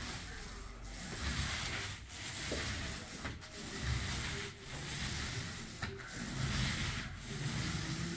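Paint roller on an extension pole rolling wet paint across a ceiling: a sticky rubbing hiss in about six back-and-forth strokes, each a little over a second long.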